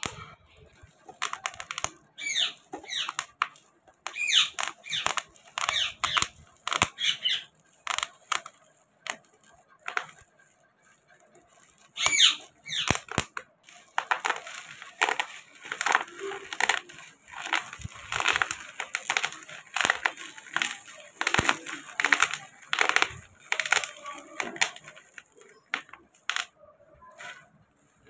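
Plastic bubble wrap crinkling and rustling as gloved hands pull it apart and unwrap it, in a run of short crackles with a quieter pause about a third of the way through.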